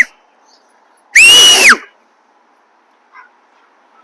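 A dog's loud, high-pitched squeal, once, about a second in, rising and then falling in pitch over about half a second.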